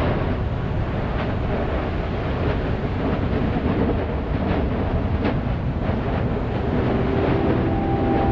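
Erupting volcanic vent of the Meradalir fissure eruption, rumbling steadily, with irregular sharp pops.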